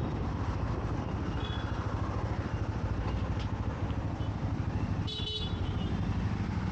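Motorcycle engine running under way in city traffic, with steady low rumble and wind noise, and a vehicle horn honking briefly about five seconds in.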